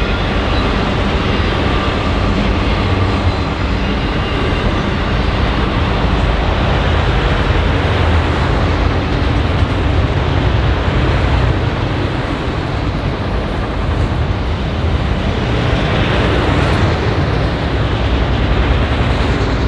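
Long freight train of autorack cars rolling past: a loud, steady rumble of steel wheels on the rails.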